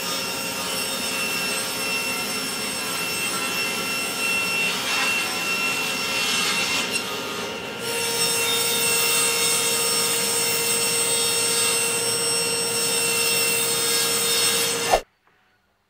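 Cabinet table saw running and cutting through plywood: a steady motor whine under the rough noise of the blade in the wood. About halfway through, a second cut begins, a little louder and with a clearer steady tone, and the sound cuts off suddenly near the end.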